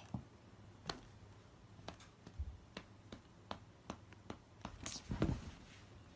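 Scattered light clicks and taps, irregularly spaced at about one or two a second, with a few closer together near the end, over a quiet room.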